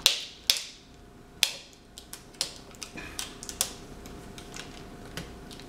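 Sharp clicks and light taps of fingers working at a laptop LCD panel's video-cable connector, peeling back the tape over it and handling the plastic and metal parts. The clicks come every half second to a second in the first four seconds, then thin out to a few faint ticks.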